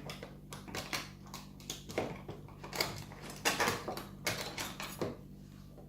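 Small metal lock pins and tools clicking and tapping irregularly as the pin tumbler lock is taken apart, about a dozen light taps that stop about five seconds in. A steady low hum runs underneath.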